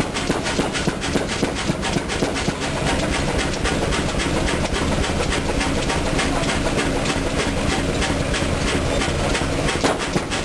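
1924 Chicago Pneumatic 50 hp horizontal diesel engine running steadily, its low rumble overlaid by a fast, even clatter of mechanical knocks.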